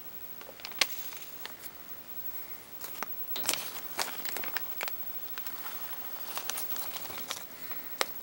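Newspaper cage lining crinkling and crackling under pet rats moving about on it: scattered sharp rustles and clicks, sparse at first and busier from about three seconds in.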